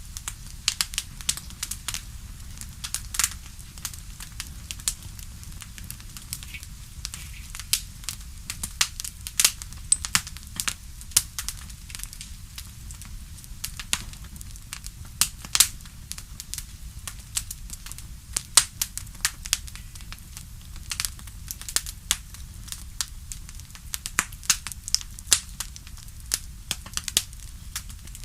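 Wood bonfire crackling: a continual, irregular stream of sharp pops and snaps over a steady low rumble.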